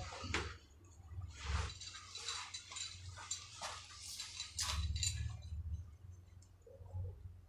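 A series of light, irregular clinks, clicks and scraping rattles, like hard objects being handled.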